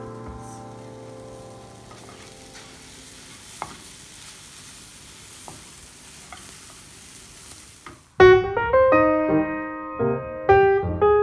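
Scrambled eggs and chopped tomato sizzling in a frying pan, with a few light clicks of a wooden spoon stirring them. Piano music fades out at the start and comes back loudly about eight seconds in.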